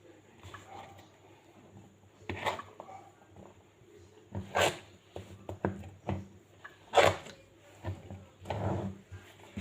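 Kitchen handling sounds while preparing food: a series of short, noisy strokes about two seconds apart, with lighter clicks between them.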